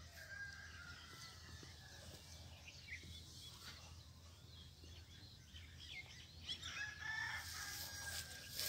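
Faint rooster crowing twice: a drawn-out call near the start and a louder one about seven seconds in.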